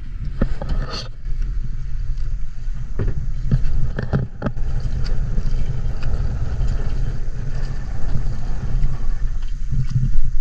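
Small boat's motor rumbling low and steady, with wind on the microphone and a few sharp knocks in the first half.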